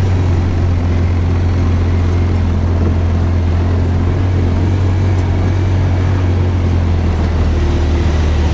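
Polaris Ranger side-by-side utility vehicle's engine running steadily as it drives slowly, a constant low drone.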